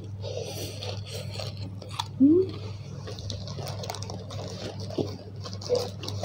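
Close-up biting and chewing of a fried eggplant fritter (bakwan terong), with crackly mouth sounds and a few small clicks over a steady low hum. A short rising tone about two seconds in is the loudest moment.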